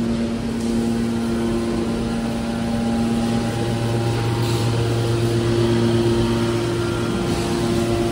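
Steady machine hum from a hydraulic scrap-metal baler's power unit, its electric motor and hydraulic pump running. It holds a few steady low tones, one of which drops out and another takes over about three and a half seconds in.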